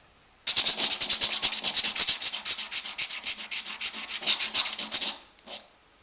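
Hand sanding or abrading the old soldering iron with rapid back-and-forth strokes, about eight or nine a second. It starts half a second in and stops about five seconds in, with one last short stroke just after.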